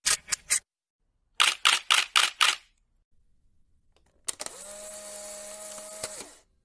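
Camera shutter clicks: three quick clicks, then a run of five a moment later. Near the end comes a steady mechanical whir of about two seconds that starts with a click and cuts off suddenly.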